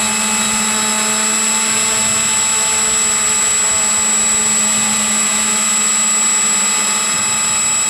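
Dynam PBY Catalina RC model's electric motor and propeller running steadily in flight, heard close up from under the wing: a constant hum with a high whine over it and a rush of wind. It cuts in and cuts off abruptly.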